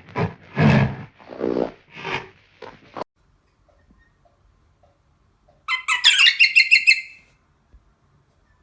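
Animal calls from two different animals. For about three seconds there are rough, low calls, roughly two a second. After a pause comes a short, high-pitched, rapid trill lasting about a second and a half.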